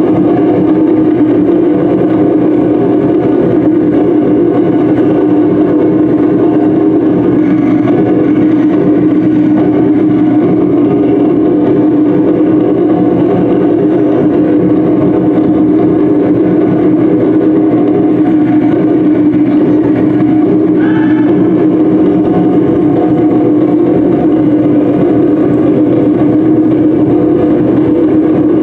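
Loud, continuous music accompanying a Polynesian-style stage dance, with a dense, fast, unbroken texture.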